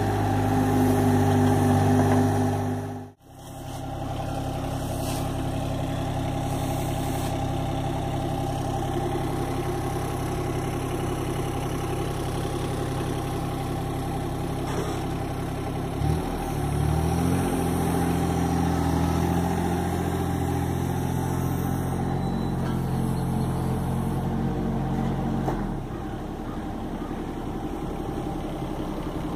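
Small diesel engine of a John Deere 17D mini excavator running steadily, with a brief dropout about three seconds in. Its pitch steps up about halfway through as the machine works, then drops back near the end.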